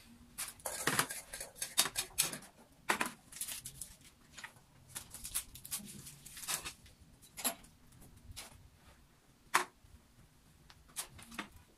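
Irregular clicks, knocks and light rustling of household items being handled and set down while tidying a room. The sounds come in a busy cluster in the first couple of seconds, then as single sharp knocks spaced a second or more apart.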